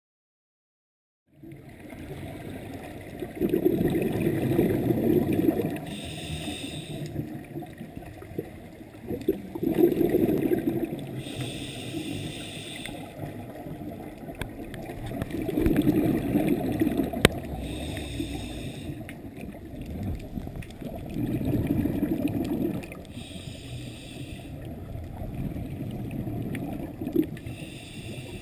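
Scuba diver breathing through a regulator, heard through a camera's underwater housing: about two seconds of low bubbling rumble from the exhaled bubbles, then a short hiss of inhaled air, the cycle repeating about every six seconds. It begins about a second and a half in, and one sharp click comes about midway.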